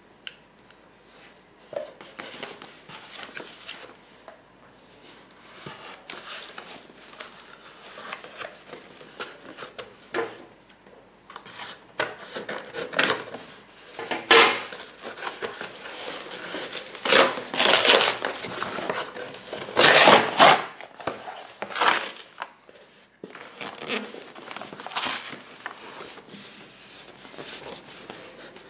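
Cardboard shipping carton and the polystyrene box packed inside it being handled and pulled apart: irregular rustling, scraping and short sharp knocks, loudest about halfway through.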